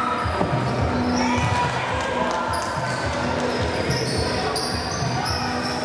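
Indoor ball game in a hall: a ball bouncing repeatedly on the floor, with short high squeaks and voices, all echoing in the room.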